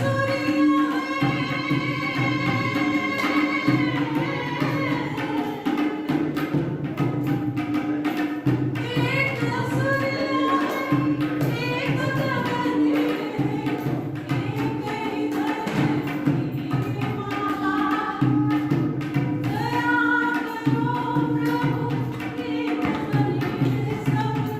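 A woman singing a Hindi film song in long, held melodic lines over a backing of tabla-like percussion and a steady drone.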